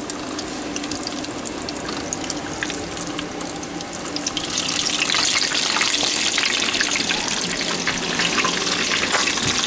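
Battered Twinkie deep-frying in hot grease in a steel pot, the oil bubbling and crackling steadily. The sizzle grows louder about halfway through.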